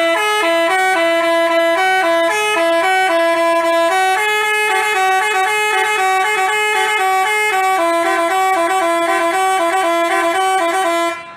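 Basuri telolet multi-tone bus horn playing a quick melody of short stepping notes, running continuously and cutting off abruptly near the end.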